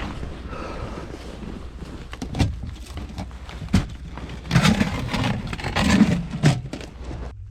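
Wind noise on the microphone with clicks, knocks and rustling from handling fishing gear, with the loudest rustles a little past the middle; the sound cuts off abruptly near the end.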